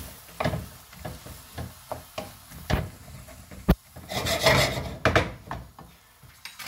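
Wooden spoon scraping and stirring chopped onion and leek around a frying pan: a string of short, irregular scrapes with one sharp knock about halfway through.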